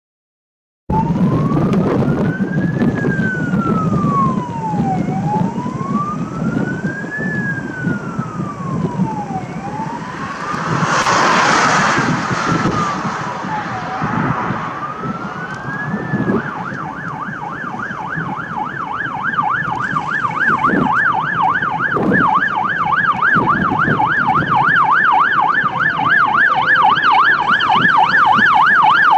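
Fire engine sirens sounding a slow wail that rises and falls about every four and a half seconds, switching about 16 seconds in to a fast yelp, over the low diesel rumble of a Scania P360 and a DAF fire truck driving on an emergency call and getting louder as they approach. A brief rushing noise swells about eleven seconds in.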